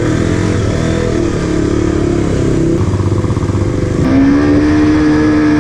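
KTM RC's single-cylinder engine running under way, its revs rising and falling, then held steady for about two seconds near the end.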